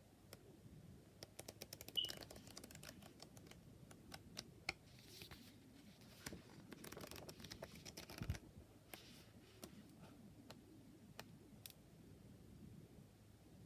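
Faint clicks and light taps of tarot cards and their packaging being handled by hand. A quick run of ticks comes about two seconds in, and there is a soft thump past the middle.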